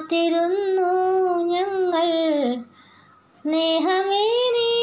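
A woman singing a Malayalam film song unaccompanied, in two long, slow, held phrases with a short breath pause about two and a half seconds in.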